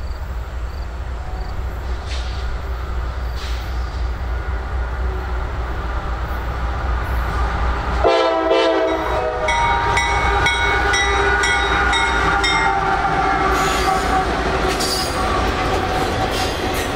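Diesel freight train rolling past with a steady low rumble. About eight seconds in, a train horn sounds, a chord of several tones. Higher sustained ringing tones then carry on over the passing train.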